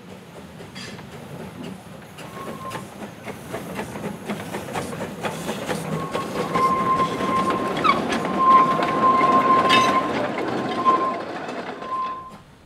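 Arnold Jung narrow-gauge steam locomotive of 1921 and its open passenger carriages running past, with wheels clicking over the rail joints and an on-and-off high squeal from the wheel flanges on the curve. It grows louder as the train passes, then drops away near the end.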